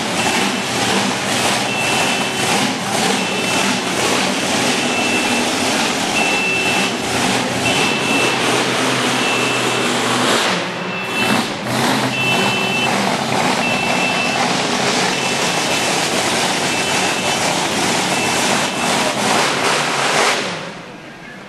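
A vehicle's reversing alarm beeping about once a second over loud, steady vehicle noise, cutting off shortly before the end.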